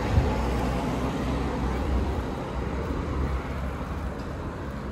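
Road traffic on a city street: a steady rumble and hiss of passing cars, with a brief knock just after the start.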